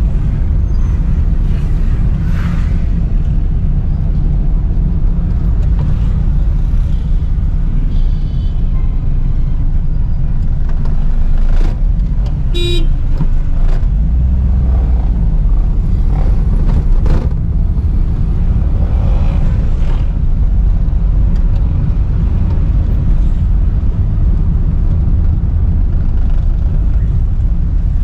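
Steady engine and road noise heard from inside a small Suzuki Mehran hatchback driving in city traffic. A vehicle horn sounds briefly about halfway through.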